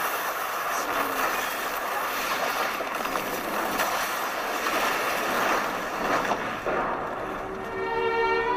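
Action-film sound effects: a steady, dense rushing noise like wind or traffic, with a few faint whooshing sweeps. String music comes in near the end.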